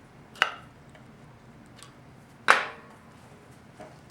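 Metal transmission pump parts being handled and knocked together: two sharp knocks about two seconds apart, the second louder with a brief ring, and a few light ticks.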